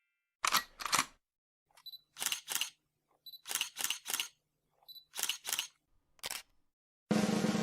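Camera shutter sound effect: a series of sharp shutter clicks, mostly in quick pairs, several of them preceded by a short high beep like a focus-confirm tone. A loud drum roll starts near the end.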